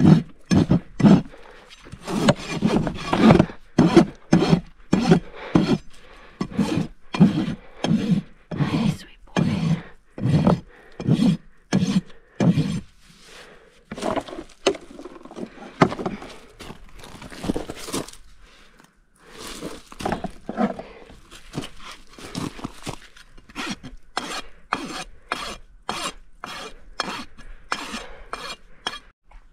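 A farrier's rasp stroking across a horse's hoof wall, about two rough strokes a second, beveling the quarters during a barefoot trim. The strokes thin out midway, then come back quicker near the end.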